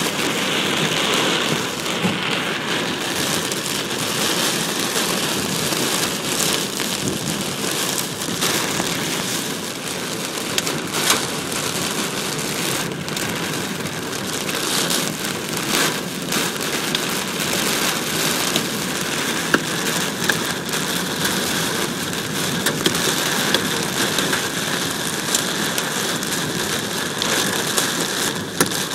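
Dime-size hail and heavy rain pelting a Nissan pickup truck, heard from inside the cab: a dense, steady hiss of rain with many sharp snaps of hailstones striking the body and glass.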